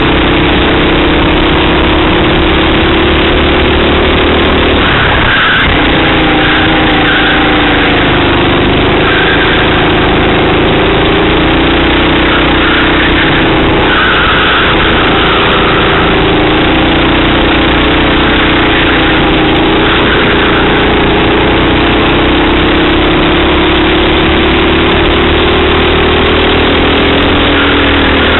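Racing kart's engine running at speed, heard from a camera mounted on the kart. Its note drops sharply about five seconds in, then rises and falls through the corners and straights.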